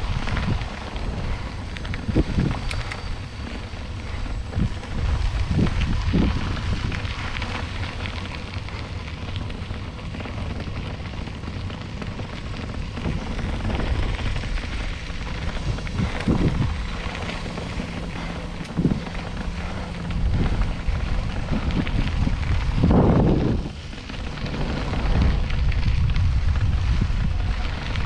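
Wind buffeting the microphone of a camera riding on a moving bicycle: a steady low rumble with scattered short thumps and bumps, and a louder gust a little before the end.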